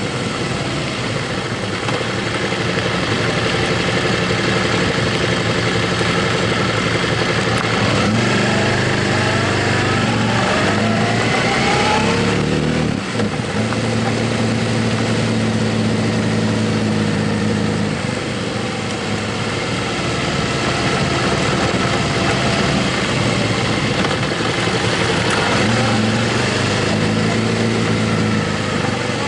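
Motorcycle engine running under way, with a steady rush of wind noise. About eight seconds in the engine pitch climbs for a few seconds as it accelerates, drops briefly at a gear change, then holds steady while cruising.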